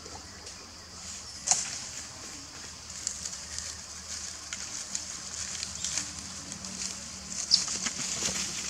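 Dry leaves crackling and snapping under long-tailed macaques moving on a leaf-littered forest floor, with sharper snaps about one and a half seconds in and again near the end as the mother walks off. Under them runs a steady high hiss.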